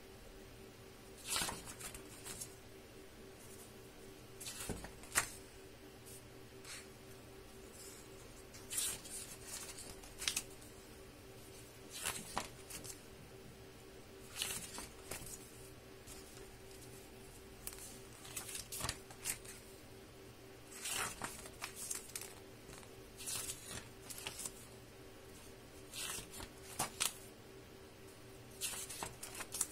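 Pages of a large hardcover book being turned by hand one after another, the paper rustling and flapping in short bursts every couple of seconds, over a faint steady hum.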